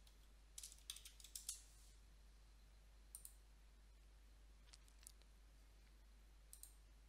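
Faint computer keyboard typing: a quick run of keystrokes about a second in, then a few single clicks spaced out over the following seconds.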